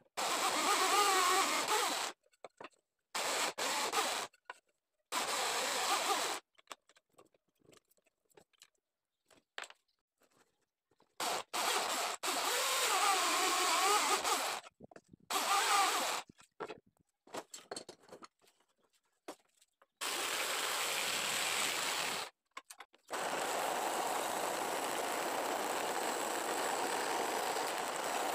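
Bench drill press with a hole saw boring through wooden boards in several short bursts, separated by abrupt silences. From about 20 seconds in, a vertical belt sander runs steadily.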